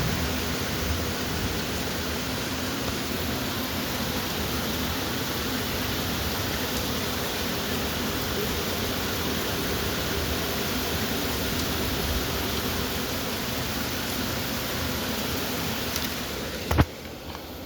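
Heavy rain pouring down in a steady, even rush. Near the end a single sharp click, after which the sound is much quieter.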